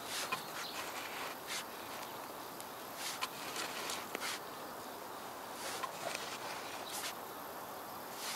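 Long-handled hoe scraping through loose soil in short, irregular strokes as earth is pulled up against a row of cut-back garlic chives.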